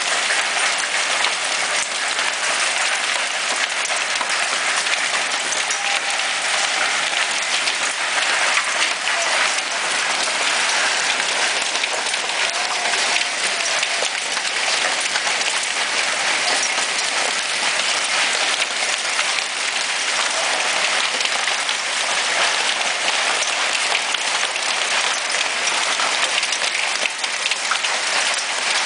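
Small hail falling on a wooden deck and a glass-top patio table: a steady, dense patter of countless tiny impacts.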